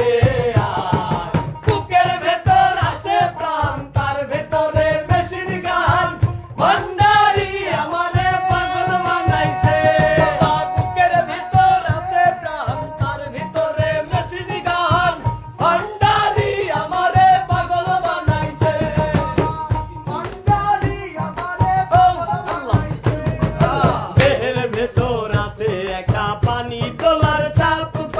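Men singing a Bengali song, with a regular low drum beat underneath.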